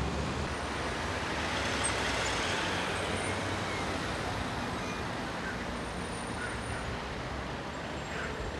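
Steady road traffic: cars and trucks driving past, a little louder about two seconds in.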